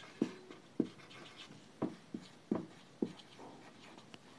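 Dry-erase marker writing on a whiteboard: a string of short, irregular strokes and taps as letters are written.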